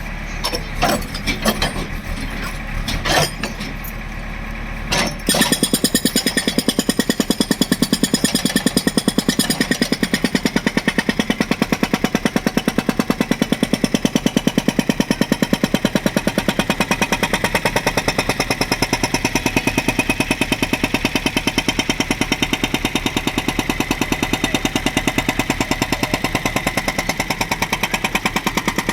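Hydraulic breaker on a JCB 3DX backhoe loader hammering. A few separate knocks come first, then about five seconds in it settles into rapid, steady, continuous hammering.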